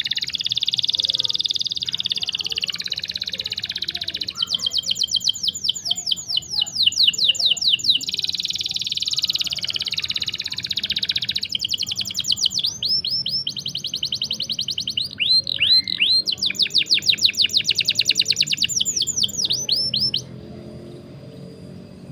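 Canary singing long rolling trills: fast runs of repeated high chirps that change pace and pattern every few seconds, breaking off near the end.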